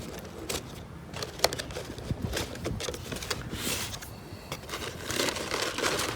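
Cardboard fast-food meal box being opened and its contents handled: irregular paper and cardboard rustling and crinkling, with several sharp clicks and taps, busiest near the end.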